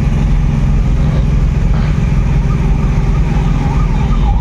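Cargo pickup's engine running steadily under way, heard from inside the cab with road noise. About halfway through, an emergency vehicle's siren starts to wail faintly in the traffic, its pitch sweeping up and down about once a second.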